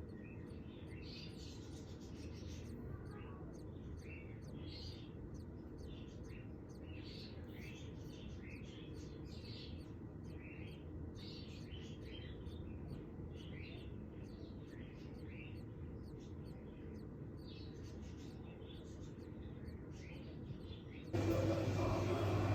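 Lovebirds chirping in short, high cheeps, a few a second, over a steady low hum. Near the end the sound cuts suddenly to a louder hum.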